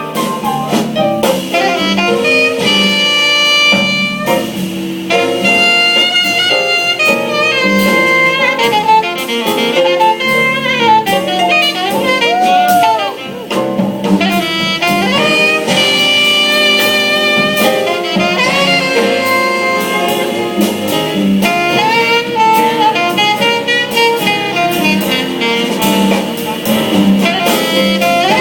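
Jazz saxophone solo over a band with drum kit: a fast melodic line of many short notes with some bent, sliding pitches.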